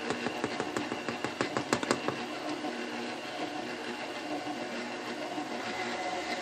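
Electric mixer running steadily, beating a thin, batter-like dough for sweet rolls. In about the first two seconds there is a quick run of light clicks or taps over the motor hum.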